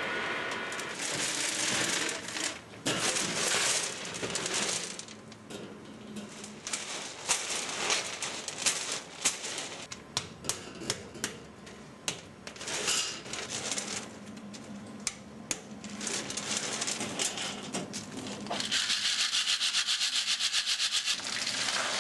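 Hard berlingot boiled sweets clattering and scraping against stainless steel as they are tipped and stirred by hand, with many sharp separate clicks of sweets striking the metal. Near the end comes a louder, fast, even rattle for about three seconds.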